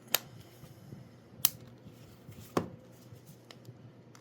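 Three sharp clicks about a second apart, with faint handling between them, as a flexible TPU 3D-printed remote cover is handled and fitted.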